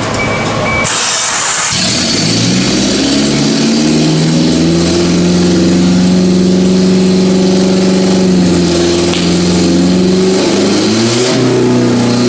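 1990 Geo Tracker's 1.6-litre four-cylinder engine starting and running with no exhaust system fitted. It revs up about two seconds in and holds a steady raised speed, then eases off and picks up again near the end.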